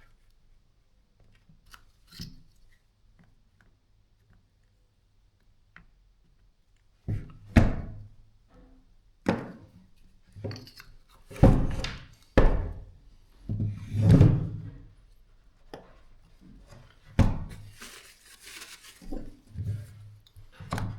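Irregular knocks and clunks of hard parts being handled and set down on a workbench while the hammer drill is readied, after a few seconds of faint small clicks. There is no steady motor running.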